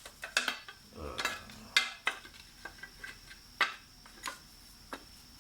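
Irregular clicks and clatter of small insert pieces being handled and knocked into and out of a table saw's metal throat plate.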